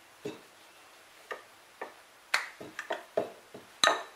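Wooden rolling pin clicking and knocking against a stone countertop while rolling out thin flatbread dough: a dozen or so irregular sharp clicks, the loudest about two and four seconds in.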